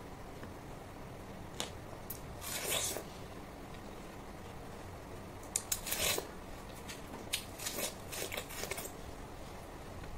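Short rustling and clicking noises, a few scattered early on and a denser cluster in the second half, over faint room tone.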